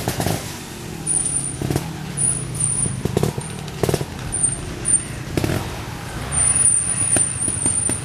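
Vintage trial motorcycle engine running as the bike climbs, revved in short repeated bursts of throttle over a steady low run.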